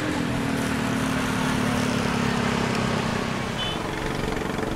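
A motor engine running with a steady hum that slips slightly lower in pitch and fades out about three and a half seconds in, over a steady rushing noise.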